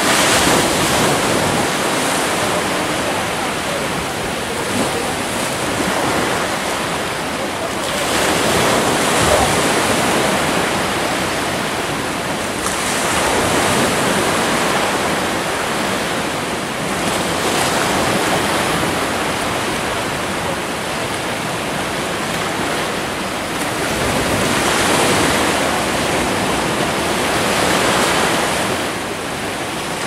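Sea waves washing in among rocks on a beach: a continuous rush of surf that swells and falls back every few seconds.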